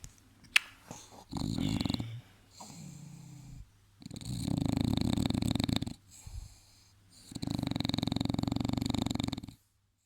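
English bulldog snoring, with loud, rattling snores that come about every three seconds, each lasting about two seconds, and quieter breaths in between. A single sharp click comes near the start.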